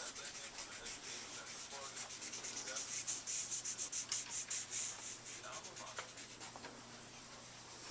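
Dry drawing medium rubbed rapidly across paper on an easel pad, short scratchy strokes about five or six a second, loudest midway, then fading.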